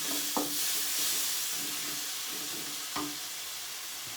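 Onion-tomato masala sizzling in hot oil in a pan while it is stirred with a spoon. The spoon knocks or scrapes sharply against the pan twice, about half a second in and again near three seconds.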